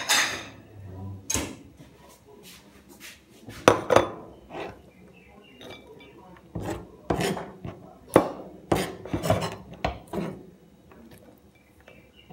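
Irregular clatters and scrapes of a kitchen knife and a bowl being handled on a cutting board as chopped garlic chives are gathered off it, about a dozen knocks with the loudest near the middle.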